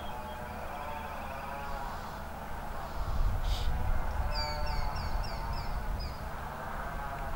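Open-air ambience: a bird gives a quick run of about six falling high chirps past the middle, over a steady background murmur, with a low rumble that swells about three seconds in.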